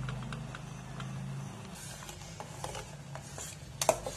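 Quiet kitchen handling: a few faint spoon ticks on a pan, then a metal spoon clinking against a steel pot while stirring dissolving jaggery, with two sharp clinks near the end. A low steady hum fades out about a second and a half in.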